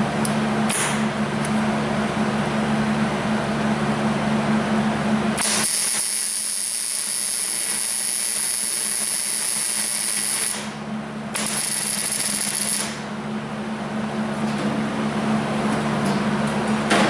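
Welding arc crackling and sizzling as weld is built up on a snapped exhaust manifold bolt recessed in the cylinder head, to give the broken bolt something to grip. For several seconds in the middle the sound turns into a high, even hiss.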